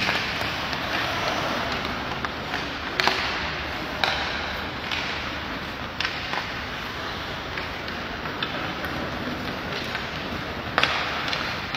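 Ice hockey play: skates scraping across the ice under a steady hiss, with about five sharp knocks of sticks and puck, the last near the end.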